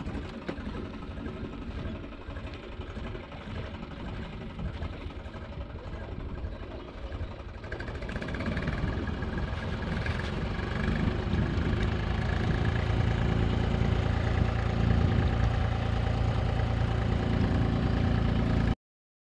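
An engine running steadily with a low hum, growing louder about eight seconds in, then cutting off suddenly near the end.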